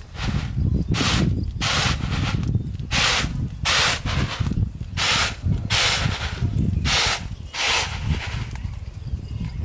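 Shelled peanuts rattling and swishing as they are shaken and tossed on a flat woven bamboo winnowing tray. The strokes come in a series, about one every three-quarters of a second, and stop near the end.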